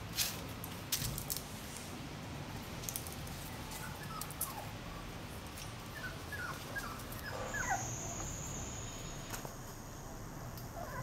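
Five-week-old Staffordshire puppies whimpering: a run of short, high squeaks, each falling in pitch, through the middle. A few sharp knocks and scuffs come near the start.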